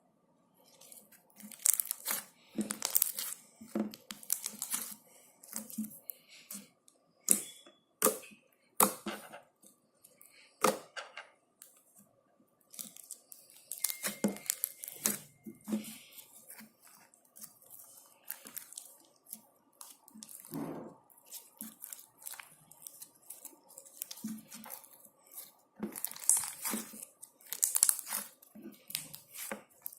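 Slime being squeezed, stretched and pressed by hand, giving irregular sticky crackles, pops and tearing sounds, over a faint steady hum.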